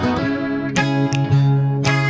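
Background music: strummed acoustic guitar with sustained bass notes, an instrumental passage with no singing.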